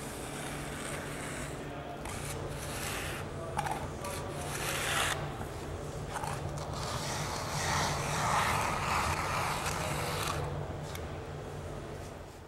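Wooden hand float, a redwood board with a handle, rubbing and scraping over fresh wall plaster in circular passes, knocking off the high spots and smoothing the coat. The scraping swells louder twice, about four to five seconds in and again from about eight to ten seconds.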